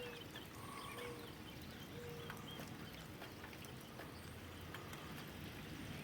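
Neighbourhood songbirds calling faintly, a few short whistled notes and chirps, over a steady hiss of light rain.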